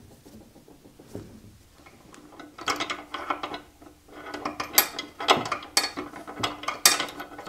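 Drive pulley and lower wheel mechanism of a 1930s Craftsman 12-inch bandsaw turned by hand, clicking and rattling in quick irregular runs that start about two and a half seconds in.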